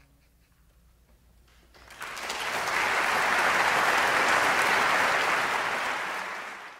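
Near silence as the last notes die away, then about two seconds in a concert audience breaks into applause, which holds steady and fades out near the end.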